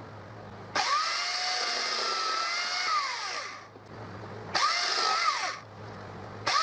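Chainsaw in a cutting jig run up in three bursts as it cuts through branches, its pitch dipping and recovering as the chain bites into the wood. The first cut lasts about three seconds, the second is short, and the third starts near the end, with a low hum between them.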